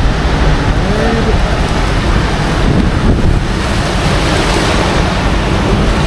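Steady rush of the Rhine Falls' water, heavy and continuous, with wind buffeting the microphone.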